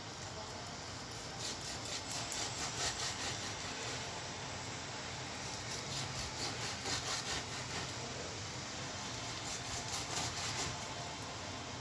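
Pork skin being pricked over and over with a pointed utensil, quick jabbing strokes coming in several spells to pierce the skin so it crisps.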